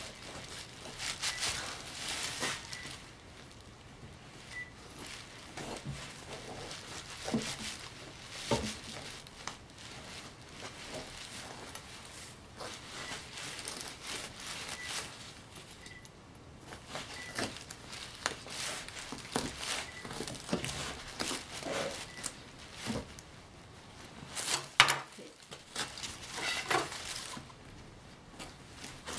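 A knife cutting and prying through a tough, sticky fruit: irregular scraping and crunching with short knocks against the cutting board, a few louder knocks about a third of the way in and a cluster of them near the end.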